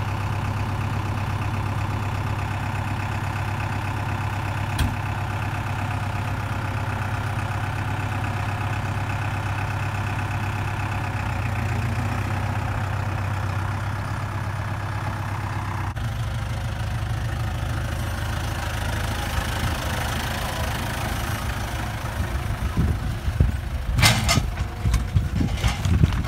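Tractor engine running steadily, its note changing about two-thirds of the way through. Near the end come a series of irregular knocks and thumps.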